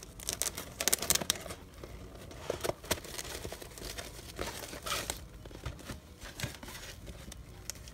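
Crinkling and rustling of a slick, smooth-surfaced fabric organizer bag being handled while its hook-and-loop (velcro) lid is pressed into place and the bag is opened, with a few rasping tears. The irregular crackles are loudest in the first second or so.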